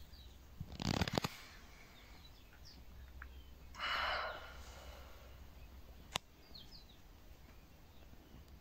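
A quiet room with several faint, short, high bird chirps that fall in pitch. About a second in there is a burst of rustling handling noise on the phone, around four seconds in a breathy exhale, and just after six seconds a single sharp click.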